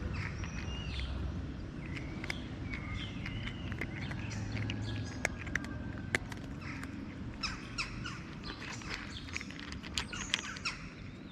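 Small birds chirping and twittering over a steady low rumble, with scattered sharp ticks.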